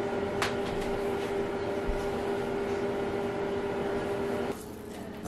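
A steady hum at one constant pitch, like a running appliance or motor. About four and a half seconds in it drops to a quieter hum at a slightly different pitch.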